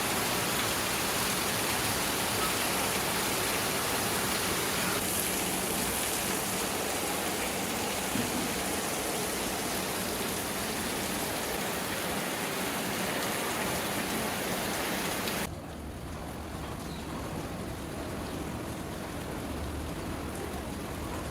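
Heavy rain pouring down in a dense, steady hiss. About three quarters of the way through it drops suddenly to a softer, duller downpour.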